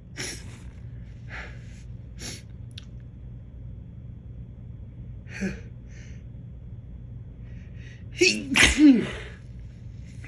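A man's sneezing fit: a few short breathy sniffs, then a loud voiced sneeze about eight seconds in.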